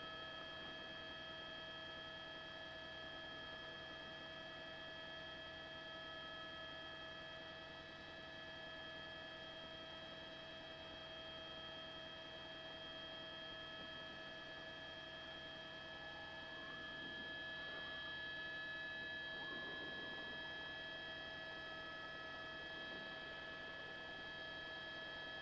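Steady, faint hum made of several fixed tones in a news helicopter's intercom audio.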